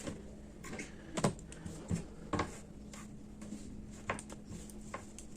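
A few scattered light clicks and taps of hand-sewing work as the thread is knotted and cut off, over a faint steady hum.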